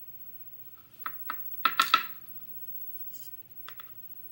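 Small metal clinks and taps of tweezers handling lock pins in a pin tray: a couple of single clicks about a second in, a quick cluster of louder clinks near two seconds, and two light clicks near the end.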